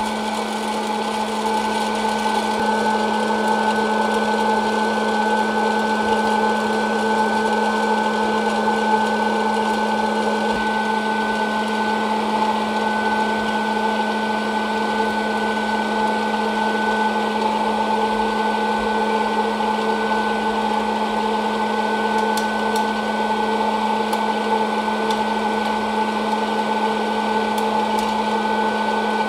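Hot-air popcorn popper running: its fan motor gives a steady hum with several steady higher tones over the rush of air. A few faint clicks come near the end as the first kernels begin to pop.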